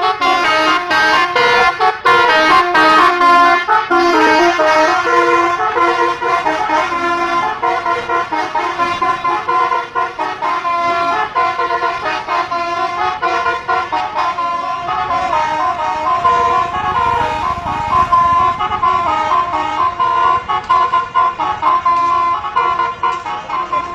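Bus 'telolet' horn, a set of multi-tone air horns, playing a continuous tune of stepped notes. A low rumble builds underneath partway through.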